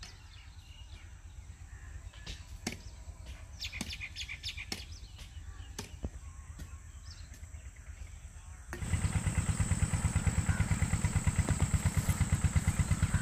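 A hoe chops into dry soil a few times, about a second apart, with birds chirping over a faint low engine drone. About two-thirds of the way through, a much louder engine with a steady, rapid low thudding takes over.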